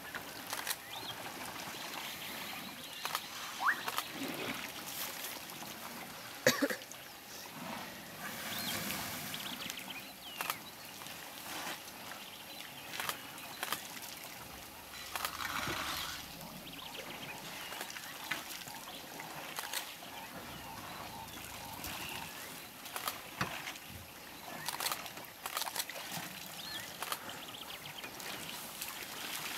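Elephants drinking and wading at a waterhole: water trickling, pouring and splashing as trunks draw it up and empty it into their mouths, with scattered short knocks and splashes throughout.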